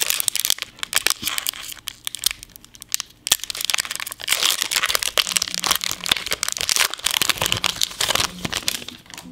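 Foil Pokémon booster pack wrapper crinkling and tearing as it is opened by hand, with a quieter moment about two seconds in.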